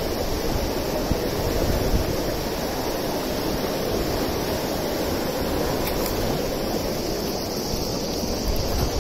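Swollen, fast-flowing river rushing over rapids: a steady wash of churning water, with a low rumble of wind on the microphone.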